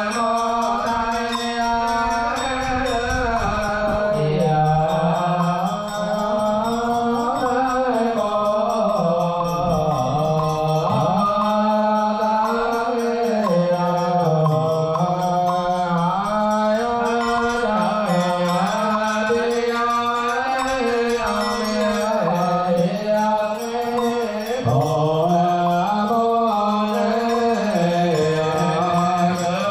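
Vietnamese Buddhist monks intoning a requiem (cầu siêu) chant over microphones and loudspeakers: one slow, unbroken melodic line of long held notes, the pitch rising and falling gently.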